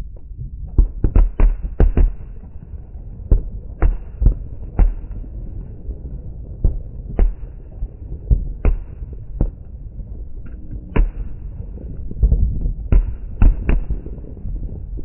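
Fireworks going off: many sharp bangs at irregular intervals, coming in quick clusters about a second in and again near the end, over a low background rumble.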